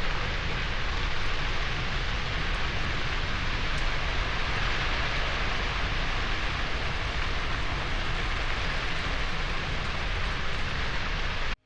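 Large grass fire burning on the volcano's slope, a steady rushing noise of burning dry grass that cuts off suddenly near the end.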